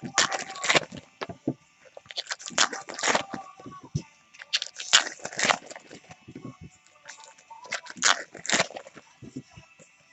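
Trading card packs and cards being handled: crinkling wrapper and cards rustling and sliding, in short clusters of crackles every second or two.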